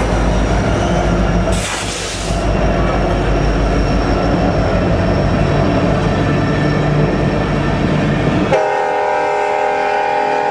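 Diesel freight locomotive running by with a heavy engine rumble and rail noise, and a brief hiss about two seconds in. Near the end its Nathan K5LLA five-chime air horn sounds a steady chord for about two seconds.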